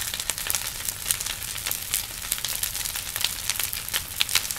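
Large bonfire of a burning wooden frame crackling: sharp irregular pops over a steady rush of flames.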